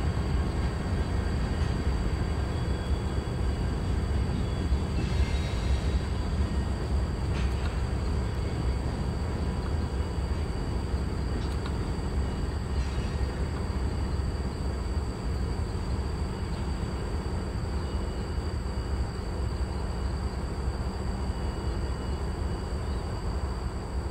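Two Norfolk Southern six-axle diesel locomotives running light, with no cars, their engines sounding steadily as they roll past and away, growing slightly fainter in the second half.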